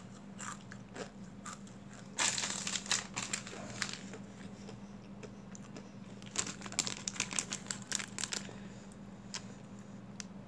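Plastic snack packet crinkling as it is handled, in two bouts of rustling: one about two seconds in, another from about six to eight and a half seconds in.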